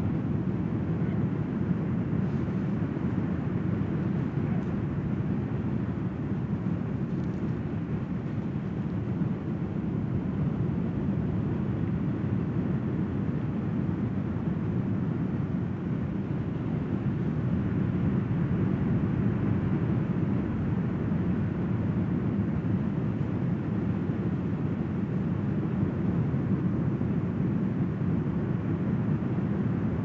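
Surf breaking on a sandy beach: a steady low rushing of waves that swells slightly and eases without ever dropping away.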